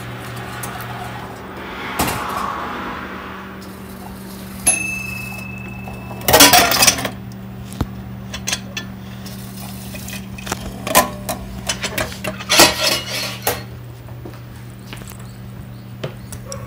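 Hot-noodle vending machine humming through its countdown, with a click and a short steady beep about five seconds in, then a loud rush a second later. After that come a run of clinks and knocks as the hot bowl is pulled out through the dispensing hatch and set down.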